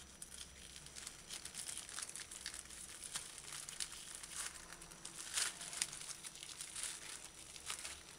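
Faint, irregular crinkling and rustling of plastic wrap on a foam tray as hands work on a piece of salted codfish, with soft tearing as the skin is peeled from the flesh. The crackles come a little louder about five seconds in.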